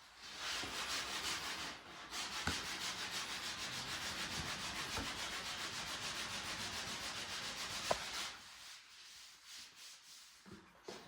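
Quick, rhythmic back-and-forth scraping strokes by hand in auto body work, about four or five a second. They ease off near the end.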